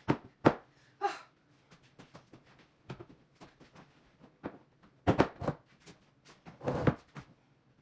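Scattered knocks, thumps and scrapes from handling and fitting sectional couch pieces together, with the loudest clusters about half a second in, around five seconds in and near the end.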